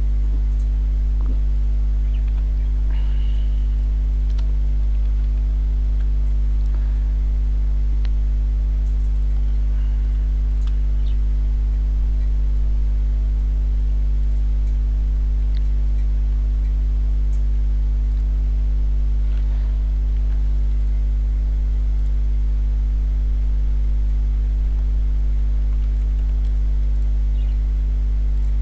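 Steady electrical mains hum, about 50 Hz with a stack of overtones, picked up on the recording line, with a few faint clicks scattered through it.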